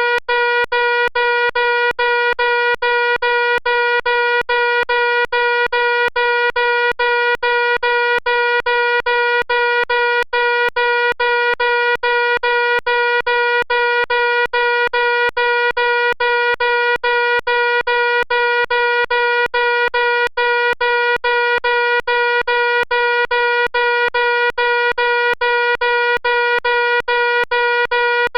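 Fire alarm sounding a loud, harsh, steady buzzing tone broken by brief gaps about three times a second.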